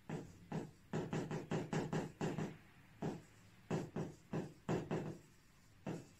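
Drawing strokes: a quick, irregular series of short scratches and taps as a diagram is drawn, in two clusters with a pause near the middle and one last stroke near the end.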